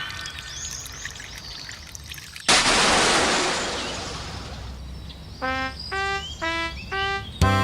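Cartoon sound effects: a sudden loud rush of noise about two and a half seconds in that fades away over a couple of seconds, then five short pitched tones in a row, and music with a heavy beat starting near the end.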